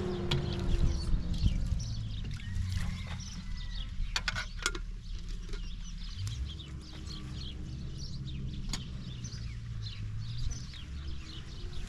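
Outdoor ambience of small birds chirping again and again over a low steady rumble, with a few sharp clicks about four seconds in.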